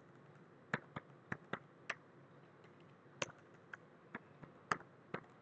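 Faint, irregular clicks of computer keyboard keystrokes as a word is typed, about eleven in all, the strongest a little past three seconds in and again near the end.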